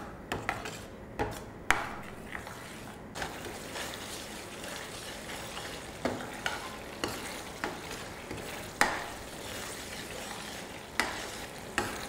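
Metal spoon stirring and scraping a thick tomato, ginger and green chilli masala paste frying in oil in a stainless steel pan: a steady low sizzle with irregular sharp clinks of the spoon against the pan. The paste is being fried down until the oil separates.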